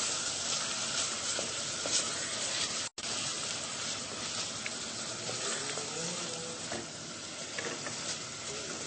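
Steady sizzle of food frying in a pan on the stove, with light stirring clicks. The sound drops out completely for a split second about three seconds in.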